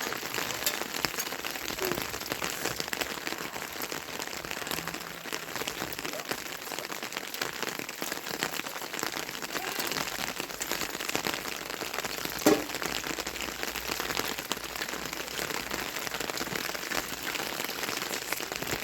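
Steady rain falling on a surface, an even hiss full of fine drop ticks, with one sharper knock about twelve seconds in.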